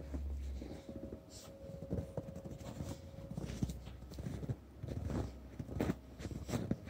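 Footsteps crunching in packed snow, an irregular series of steps, with a low rumble on the microphone near the start.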